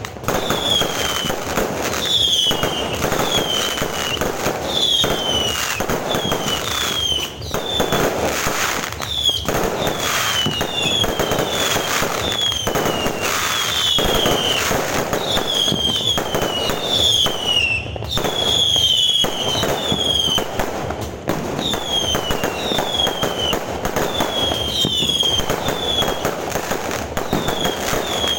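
A fireworks display going off continuously: a dense barrage of bangs and crackling, with many short whistles that fall in pitch, one after another.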